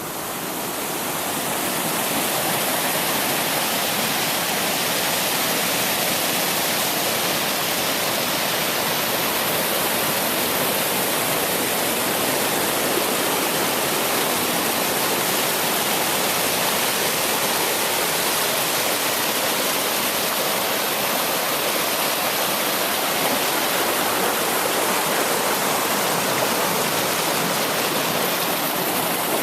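Pedernales River water rushing over the falls in a steady, even roar, fading in over the first couple of seconds.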